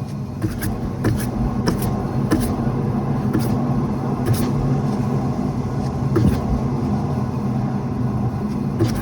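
Worn rear wheel bearing on a lifted car, the wheel spinning free and giving a steady low hum with sharp ticks every second or so: the sign of a failing wheel bearing, not a tyre or something dragging.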